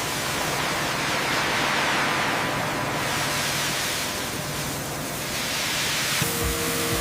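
Abrasive blasting nozzle blast-cleaning rust and coating off a steel ship hull: a loud, steady hiss. Music comes in near the end.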